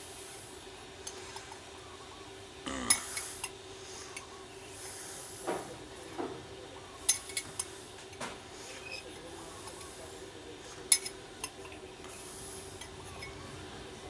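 Metal spoon clinking now and then against a drinking glass while lime seeds are fished out of freshly squeezed lime juice, with a few light scrapes between the clinks.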